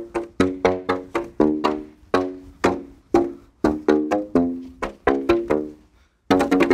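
Shoe soles slapped onto the open ends of black pipes of different heights, like a slap-tube pipe instrument. Each slap gives a hollow pitched note that dies away quickly, the pitch set by the tube's length. The slaps come about three a second at changing pitches, stop briefly near the end, then resume faster.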